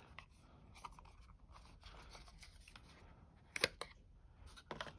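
Hands unwrapping and handling a charging cable's packaging: faint crinkling and rustling of paper and plastic, with two sharp clicks about a second apart near the end.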